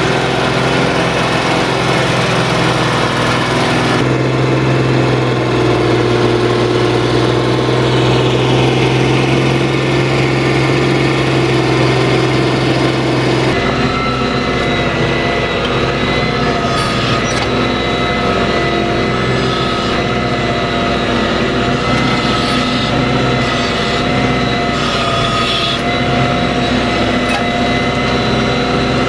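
Diesel tractor engines running hard under plowing load, first the Fiat 1380 DT, with the sound changing abruptly about four and thirteen seconds in. After that, a John Deere's engine is heard close at its rear hitch, with a steady whine over it, as the reversible plough turns heavy mud.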